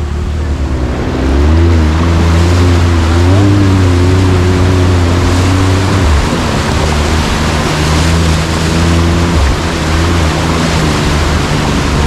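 ATV engine running with its note rising and falling, over loud rushing and splashing water as the quad wades through a swollen river.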